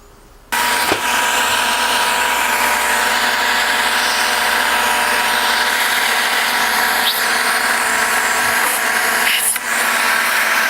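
Small vacuum cleaner switched on about half a second in, then running steadily with a motor whine over the hiss of rushing air as it sucks dust from a compact camera's internal lens. Its sound dips briefly near the end.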